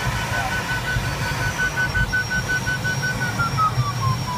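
Glider's audio variometer giving rapid, evenly spaced beeps at a steady high pitch, signalling lift. The pitch glides down over the last second or so as the climb weakens. Steady airflow noise rumbles under it in the cockpit.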